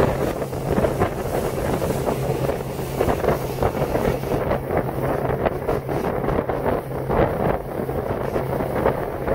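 Wind buffeting the microphone on a motorboat under way, over the steady low drone of the boat's engine.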